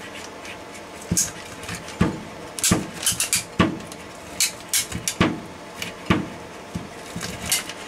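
Hand-held can opener being cranked around the rim of a steel GP-5 gas mask filter canister. It gives sharp, irregular metallic clicks and crunches, roughly one every half second to a second, over the steady hum of an air purifier fan.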